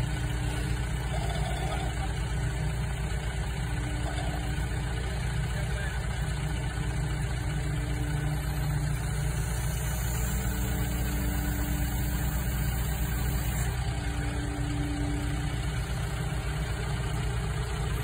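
A backhoe loader's diesel engine and a Jeep's engine idling together: a continuous, even low rumble with no revving.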